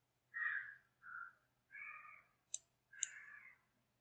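A computer mouse clicking a few times, with a series of short, faint sounds in the background, each about half a second long, the first the loudest.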